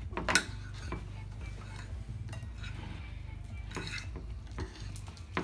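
A spoon and a spatula stirring sticky glue slime in a ceramic bowl and a glass bowl, with scattered clinks of the utensils against the bowls and a sharp knock about a third of a second in. The slime is being worked as laundry detergent activator is mixed in to thicken it.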